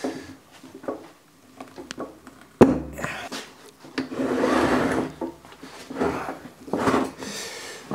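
Heavy metal reel-mower cutting unit being handled and tipped over on a wooden workbench: a sharp knock about two and a half seconds in, then scraping and rubbing against wood, with more knocks near the end.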